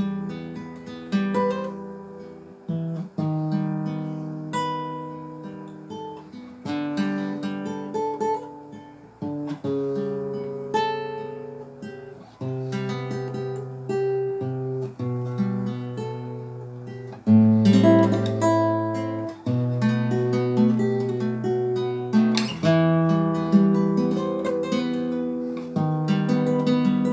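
Solo acoustic guitar playing a melody over plucked bass notes and chords, with strummed accents.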